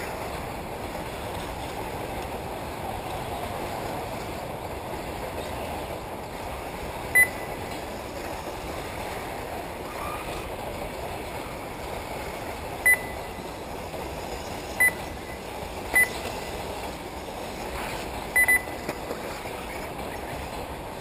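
Short, high electronic beeps, several seconds apart with one quick double near the end, over a steady wash of outdoor noise. The beeps are typical of an RC race lap-counting system as electric 1/8-scale buggies cross the timing line.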